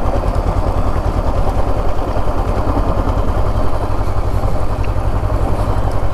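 Motorcycle engine running steadily at low speed, with the tyres rolling over a dirt track.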